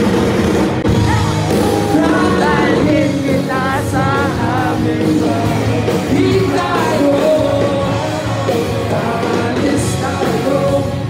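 Live band music with a singer, performing on stage in a large hall.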